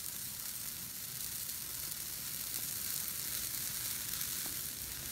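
Large bonfire of dry Christmas trees burning fiercely: a steady, crackling hiss of flames.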